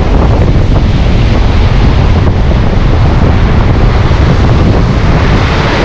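Strong storm wind buffeting the microphone: a loud, steady rumble of wind noise.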